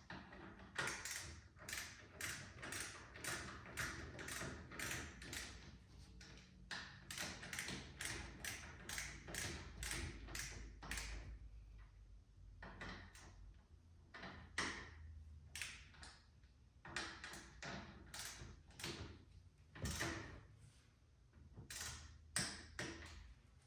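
Torque wrench ratcheting in short strokes as the front fork's axle clamp bolts are tightened to about 10 pounds. It makes a run of quick clicks, about two or three a second, with brief pauses between bolts.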